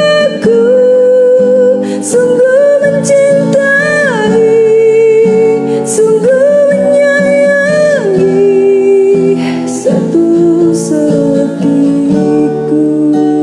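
Music: a slow love song with a melody line that slides between long held notes over guitar accompaniment.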